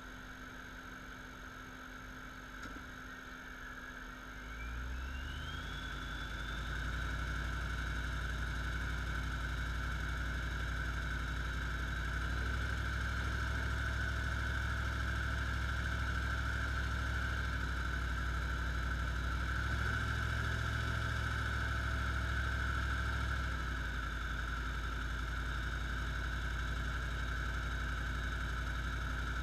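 2008 Jeep Grand Cherokee SRT8's Vortech-supercharged 6.1 L Hemi V8 running in drive under load. The revs come up about four seconds in, with a whine rising over a couple of seconds, then hold steady in the 1200–1800 rpm range. It carries a ticking that appears only in gear under load at these revs, which the owner cannot trace and doubts is the engine itself.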